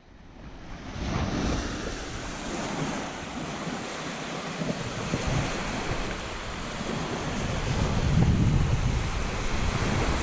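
Small sea waves breaking and washing up a sandy shore, with wind buffeting the microphone in a low gusty rumble. The sound fades in over the first second.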